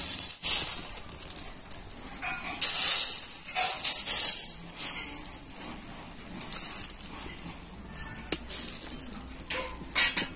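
Thin rice-flour batter sizzling on a hot, lightly oiled wok as it is brushed on with a silicone pastry brush, a hiss with each stroke, several in a row.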